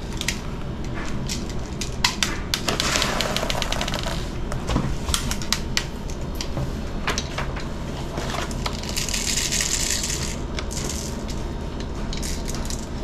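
Plastic airsoft BBs clicking and rattling as they are handled and loaded into the magazine of a Lancer Tactical compact M4 airsoft rifle, with a run of rattling about three seconds in and again around nine to ten seconds.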